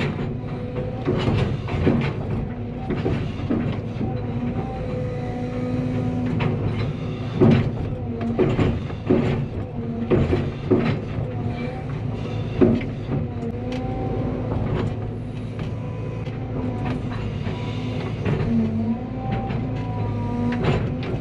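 Cat 320 hydraulic excavator working, its diesel engine and hydraulics running steadily with a pitch that rises and falls as the load changes. Repeated sharp metal clanks and knocks come through.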